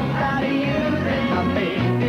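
A 1960s-style pop song playing: a band with bass and a melodic lead, and probably singing, at a steady level.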